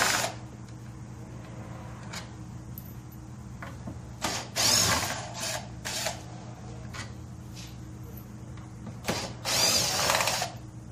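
Cordless drill-driver backing out the machine screws that hold a Peavey Black Widow 15-inch speaker in its cabinet, running in short bursts: a group about four to six seconds in and a longer run near the end.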